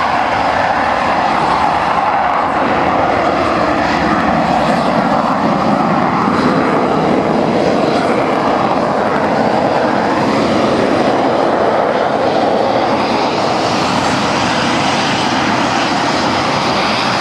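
Eurofighter Typhoon's twin Eurojet EJ200 turbofans running at taxi power as the fighter taxis past. The jet noise is loud and steady, shifting slowly in pitch as the aircraft moves by.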